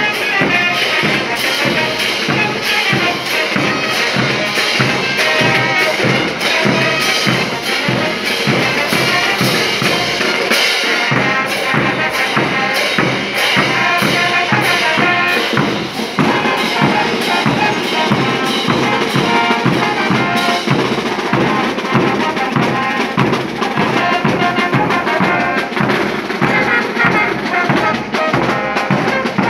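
Bolivian-style brass band playing a morenada: trumpets and tubas carry the tune over bass drums, a snare drum and crash cymbals keeping a steady beat.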